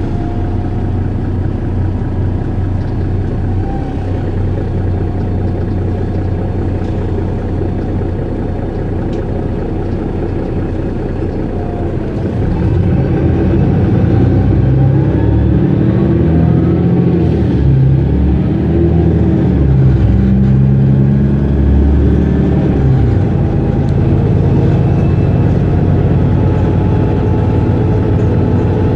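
Mercedes-Benz Citaro (O530) city bus engine running at a standstill. About twelve seconds in it grows louder and its pitch wavers up and down for about ten seconds, then it settles to a steady run.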